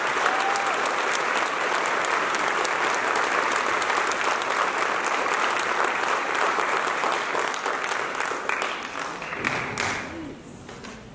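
Audience applauding, a dense crowd of hand claps that thins out and dies away near the end.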